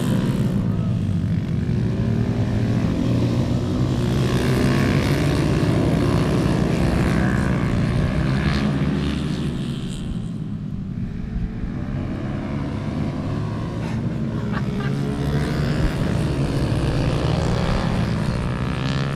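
Several small motorcycle engines running and revving together as a group rides round the track, their pitch rising and falling as the bikes pass and shift. The sound eases off about ten seconds in, then builds again.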